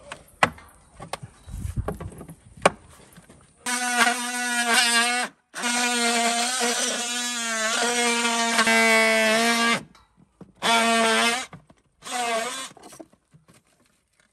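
A few light knocks, then a DeWalt oscillating multi-tool cutting into the wooden louver boards of a gable vent. The tool runs in four bursts with short stops between them, its buzzing pitch steady but wavering as the blade bites.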